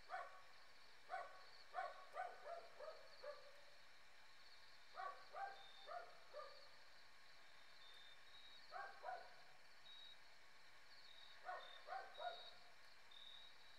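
A dog barking in four short bouts: a run of about seven barks, the last few dropping in pitch, then four, then two, then three. Under them runs the steady high chirping of night insects.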